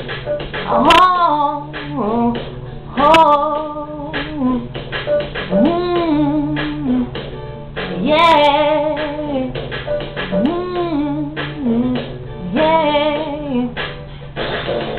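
A woman singing wordless soul phrases: about seven rising, held notes that fall away, one every two seconds or so, over a steady low hum.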